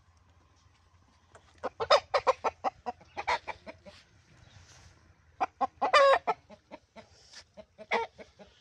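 Aseel game rooster clucking in two rapid runs of short calls, one starting about a second and a half in and another past the middle.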